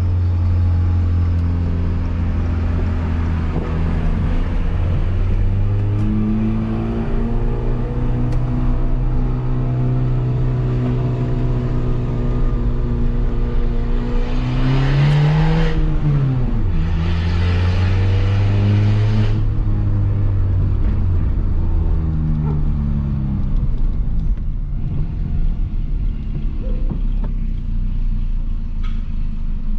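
Peugeot 206 1.4 engine running through a straight-pipe exhaust with no muffler as the car is driven. The engine note climbs slowly, drops sharply about halfway through, climbs again, and falls back lower near the end.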